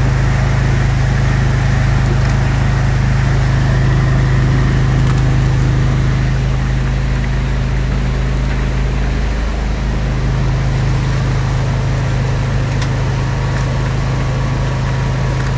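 Roto Sieve rotary drum screen running with a steady low machine hum from its drive, over a constant rush of abattoir wastewater passing through the screen.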